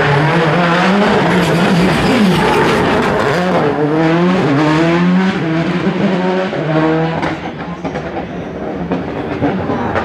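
Citroën Xsara WRC rally car's engine passing at racing speed: the revs waver through the corner, then climb repeatedly as it accelerates and shifts up, and the sound falls away about seven seconds in as the car moves off.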